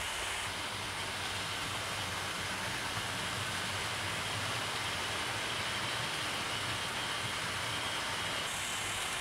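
Hornby 00 gauge model trains running on the layout's track: a steady, even running noise of small electric motors and wheels on rails.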